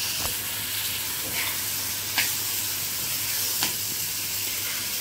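Onion-tomato masala with a little water sizzling steadily on a flat tawa griddle, with a metal spatula scraping through it four times as it is stirred.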